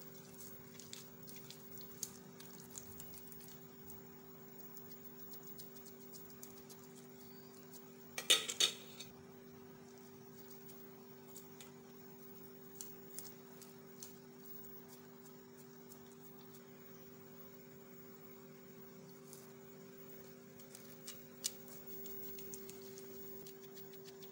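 Small clicks and taps of hands shaping oiled dough over a metal pan, with one short, louder metallic clatter about eight seconds in. A steady low hum runs underneath.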